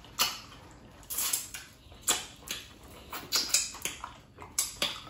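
Fingers being licked and sucked clean while eating by hand: a string of short, irregular wet mouth smacks.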